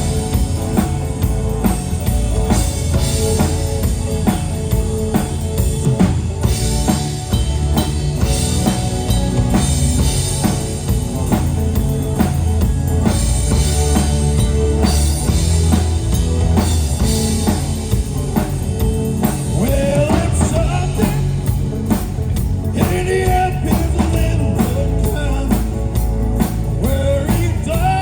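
Rock band playing with a steady drum-kit beat of kick and snare under a heavy bass line.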